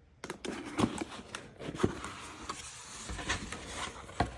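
Rustling handling noise with several sharp knocks, the loudest about a second and two seconds in, and again near the end.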